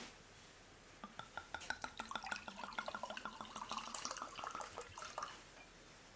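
Liquid being poured, with a quick run of gurgling glugs that starts about a second in and stops after about four seconds.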